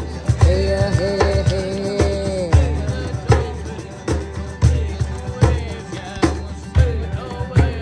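Drum-circle music: drums keep a steady beat, and singing holds a long note in the first couple of seconds.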